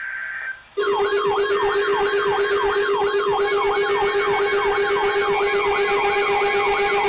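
After a short steady tone, an electronic siren starts about a second in. It is a fast falling yelp, repeated about three times a second over a steady low tone.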